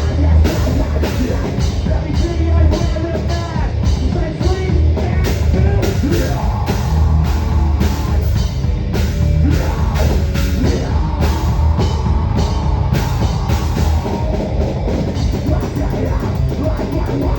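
A rock band playing a heavy, driving song, recorded raw from beside the drum kit, so the drums sound loud and close. The drum hits are dense and continuous.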